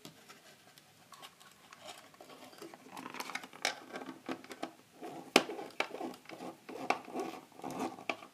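Small screwdriver scraping and clicking on the terminal screws of a plastic motion sensor as a wire is fastened in: a quiet start, then a run of light clicks and scratches from about two seconds in, with one sharp click about halfway.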